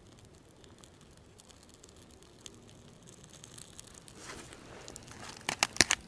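Burning birch bark crackling and rustling as it is handled and fed into a small fire pit, with a quick cluster of loud sharp crackles near the end.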